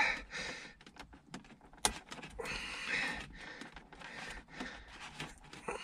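Small plastic clicks and rattles from fingers working the wiring plug off a cigarette-lighter socket, with one sharper click about two seconds in.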